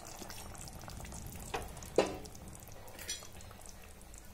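Soybean-chunk curry simmering faintly in a pan just taken off the heat, with a few sharp knocks of a ladle against the pan, two close together near the middle and one a second later.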